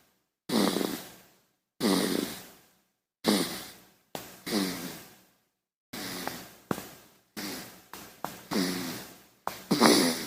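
Baby snoring: about a dozen short, breathy snores, each falling in pitch, coming closer together later on, with the loudest near the end. Each one cuts off abruptly into dead silence.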